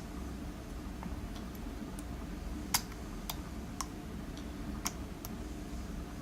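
Small sharp metallic clicks of a lock pick working the pins inside a lock, a handful of irregular ticks, the loudest nearly three seconds in, over a low steady hum.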